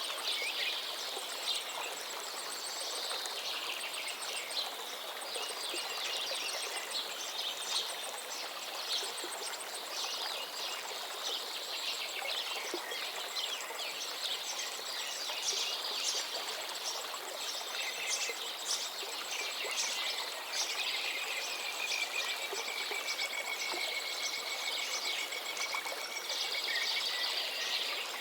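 Several birds chirping and trilling over the steady rush of flowing water, with a thin, high continuous tone above them. About twenty seconds in, one long drawn-out call holds for several seconds.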